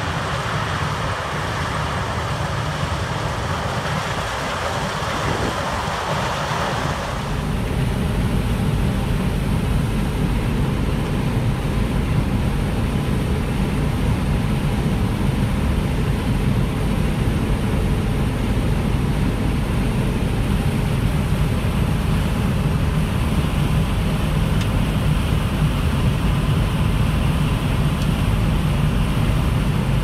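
Harvest machinery running steadily with a deep engine drone. About seven seconds in, a higher hiss falls away and the low drone grows louder.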